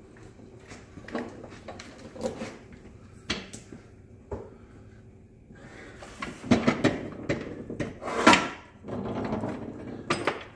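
Steel parts of a tubing anchor catcher being handled on a workbench: scattered clicks and knocks, then a busier stretch of rattling, knocking and scraping in the second half.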